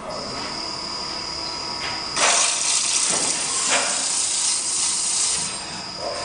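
CNC wood lathe running with a steady high whine. From about two seconds in, a loud hiss of the cutting tool taking wood off the spinning blank sets in, then eases near the end.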